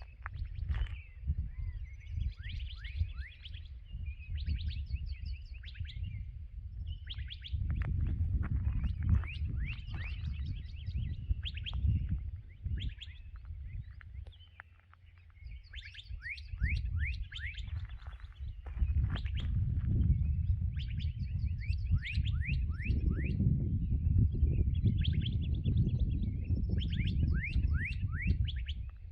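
Dawn chorus of several songbirds: repeated quick downslurred whistles and trills, over a steady low rumble of outdoor background noise that grows louder in the second half.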